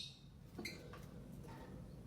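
A faint, short lovebird chirp about half a second in, followed by a couple of faint ticks; otherwise quiet.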